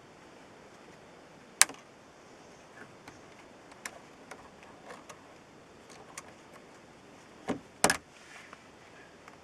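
Sharp clicks and light ticks from zip ties being bent and fitted into an ABS plastic grill block: one loud click about a second and a half in, scattered small ticks, and two loud clicks close together near the end.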